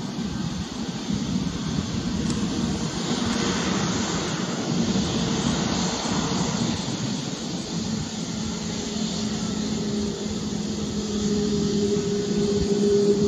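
Jet engine noise from an Airbus A320neo's CFM LEAP-1A turbofans as the airliner rolls along the runway: a steady rushing sound with a low hum that grows louder toward the end.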